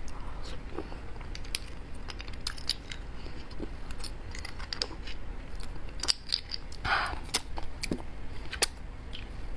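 Close-miked eating of soft braised beef bone marrow: wet mouth clicks and smacks, with a metal spoon clicking and scraping inside the marrow bones. About seven seconds in, a short, louder sucking slurp.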